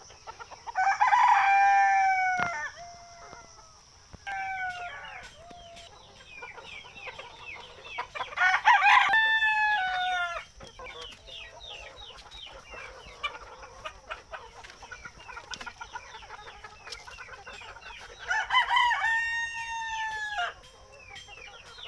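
Desi (Indian country) roosters crowing, one after another: long crows about a second in, about nine seconds in (the loudest) and again near the end, with a shorter one around four seconds. Hens clucking and chattering fill the gaps between the crows.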